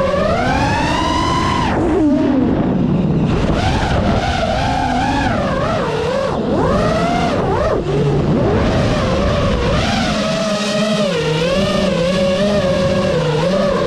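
FPV racing quadcopter's brushless motors whining, the pitch constantly rising and falling with the throttle: a long climbing whine that drops away about two seconds in, then quick wavering surges.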